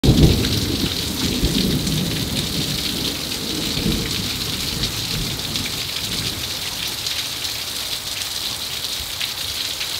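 Heavy rain pouring down, with a low rumble of thunder in the first few seconds that dies away.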